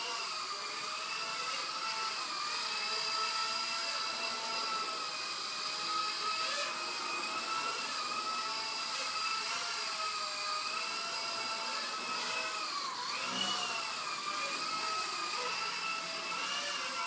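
Blade 120 SR sub-micro fixed-pitch RC helicopter in flight: a steady electric motor and rotor whine whose pitch wavers up and down as the throttle is worked, dipping sharply and recovering about thirteen seconds in.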